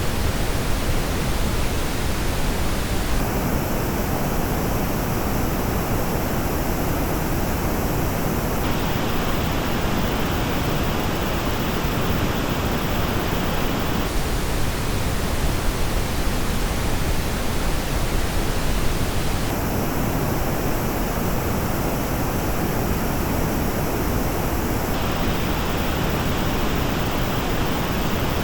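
Steady pink-noise test signal heard through headphones. Its treble colour changes abruptly about every five seconds as the playback switches between the headphones being compared, Audeze LCD-X and Audeze MM-500, each shaping the noise differently.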